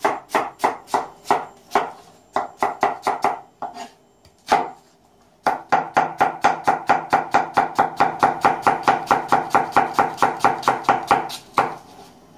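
Kitchen knife chopping an onion on a plastic cutting board: quick, even knife strikes, a short run first, a pause with a single chop, then a longer faster run of about five chops a second that stops about a second before the end.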